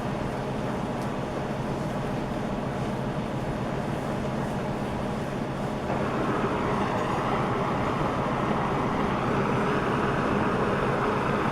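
Gas brazing torch flame burning with a steady rushing hiss while reheating a brazed joint to let the part settle. It grows louder about six seconds in.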